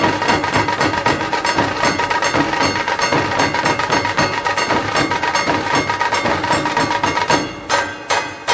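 Background music with steady held tones and a percussion beat, the strikes turning sharper and evenly spaced near the end.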